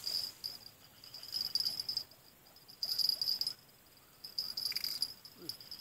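Insects trilling: a high, steady buzz that comes in bouts of about a second with short pauses between them.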